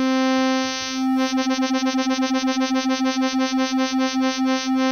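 Synclavier Regen synthesizer holding one note from a looped three-frame patch of additive waves (triangle, ramp, impulse), the timbre flickering as the frames cycle. The mod wheel sets the frame speed: the note sits nearly steady for the first second, then pulses about five times a second, almost like an LFO.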